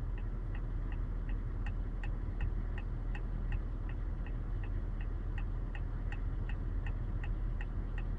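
A car's turn-signal indicator ticking steadily, about two or three clicks a second, over a low engine and road hum.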